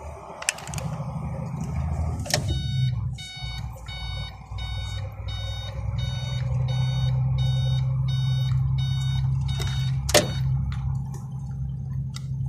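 Iveco truck's diesel engine running steadily, heard inside the cab while driving. An electronic beep repeats about twice a second from about two seconds in until about ten seconds in, and a few sharp clicks sound along the way.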